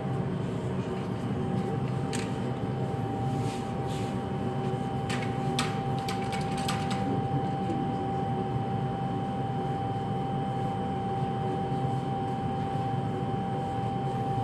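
Steady mechanical hum with a constant mid-pitched whine running underneath. A few light clicks and knocks come between about two and seven seconds in.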